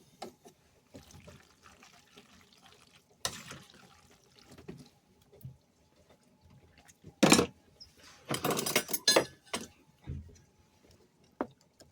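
Saucepan of pasta and baked beans being seasoned and stirred: faint wet stirring noises, a sharp knock about seven seconds in, then a quick flurry of strokes lasting about a second and a half.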